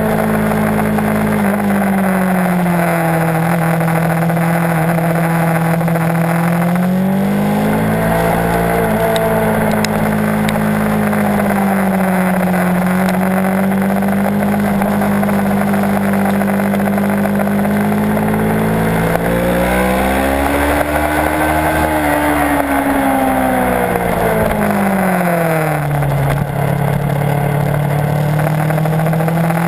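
Kawasaki Ninja 650's parallel-twin engine at track speed, its pitch falling off and climbing again several times as the rider rolls off and back onto the throttle through corners, with constant wind rush on the tail-mounted camera.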